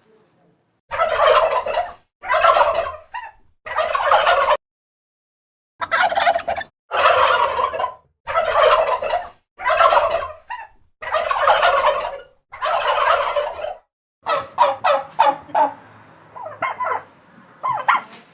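Turkey gobbling over and over, about nine rattling calls of about a second each, then a run of short, quick calls near the end.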